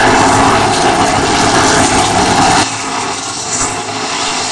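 410 sprint cars' methanol-burning V8 engines racing through a turn of a dirt oval, a loud dense roar of several cars. It eases somewhat about two and a half seconds in as the cars pass.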